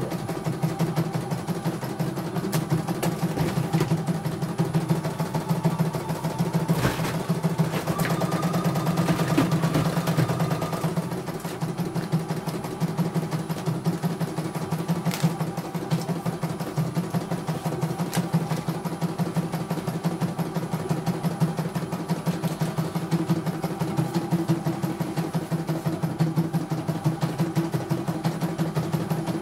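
CNY E900 computerized embroidery machine stitching a design: a fast, even run of needle strokes that keeps going steadily while the embroidery unit moves the hoop.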